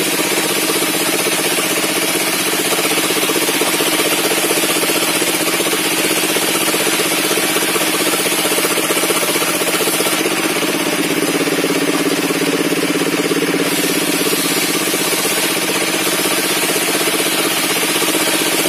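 Sawmill table circular saw and its drive engine running steadily, with an even mechanical drone and a constant high-pitched whine.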